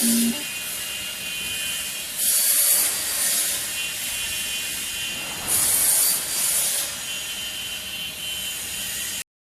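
CNC wood cutting saw making repeated cuts through wood, a loud rasping cut about every three seconds with the spinning blade's steady whine between cuts. The sound stops abruptly near the end.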